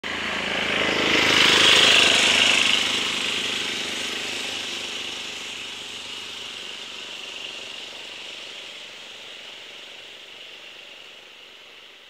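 Large off-road motor scooter's small petrol engine running under throttle as it rides away, loudest about two seconds in and then fading steadily into the distance.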